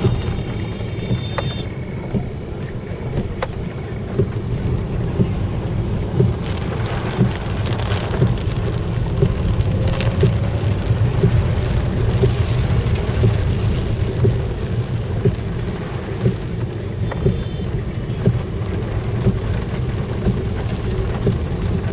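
Vehicle traffic in the rain: a steady low road and engine rumble under the hiss of rain, with scattered clicks and two short high-pitched tones.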